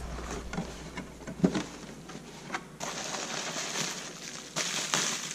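A cardboard product box and its packaging being opened by hand: sharp clicks and snaps, then rustling of packing material starting about three seconds in.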